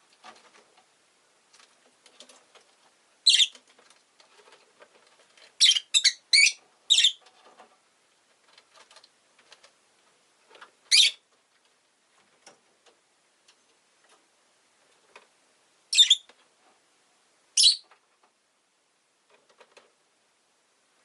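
Rosy-faced lovebird giving short, shrill, high-pitched calls: a single call, a quick run of four, then three more spaced a few seconds apart, with faint ticks and rustles in between.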